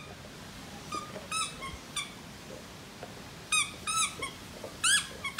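A squeaky toy ball being chewed by a Dogue de Bordeaux puppy, giving a string of short, high squeaks, loudest about four to five seconds in.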